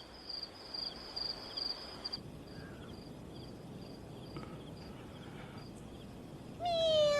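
Crickets chirping in a steady pulsing rhythm, fading after a couple of seconds, then near the end a cat's single long meow falling in pitch.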